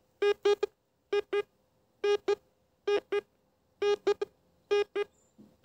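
Rutus Solaris metal detector beeping in pairs as it responds to a stone meteorite: six double beeps, about one pair a second. The double tone is its signal for a stone meteorite.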